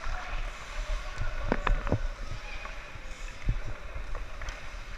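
Ice hockey rink sounds during play: a steady hiss of skates gliding on the ice, broken by several short sharp knocks of sticks and skates on the ice, a few of them close together about a second and a half in.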